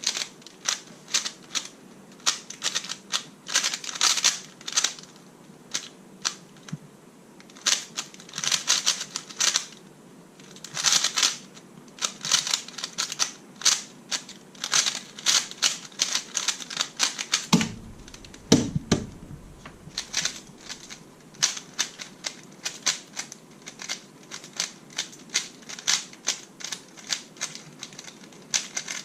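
Plastic Rubik's Speed Cube (made with GAN) being turned fast: a rapid clatter of layer-turn clicks in quick runs and short bursts. There are a few duller knocks about two-thirds of the way in.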